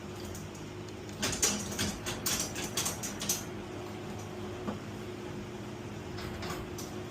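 Residential garage door running on its opener after a torsion spring replacement: a steady motor hum, with a run of rattling clicks from about one to three and a half seconds in and a few more clicks near the end.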